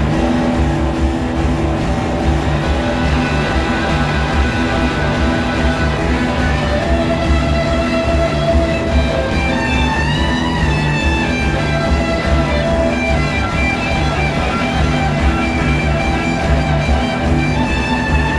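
Live rock band playing an instrumental passage: electric guitars, bass, drums and organ-style keyboard. Long held lead notes ring over the band, and about ten seconds in a held note bends up and back down.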